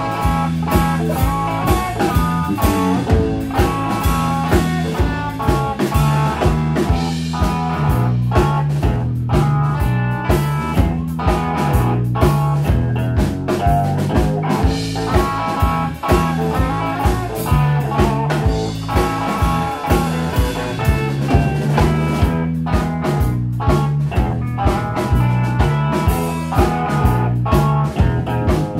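Live blues-rock trio playing with no singing: distorted electric guitar lines over a bass guitar line and a steady drum-kit beat.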